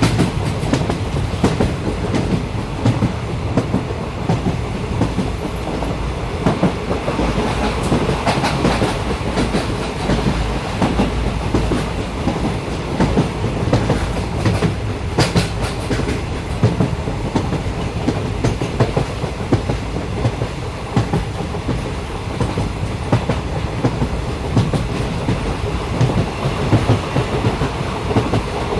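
Train running along the track: a steady low rumble with frequent short clicks and knocks of the wheels over the rails.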